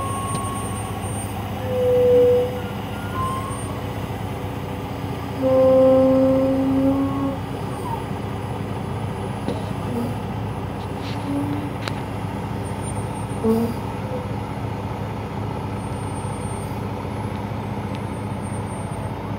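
Heavy truck's diesel engine running steadily as it backs a hydraulic boat trailer down a slipway. Two louder held tones stand out, a short one about 2 seconds in and a longer one around 6 seconds.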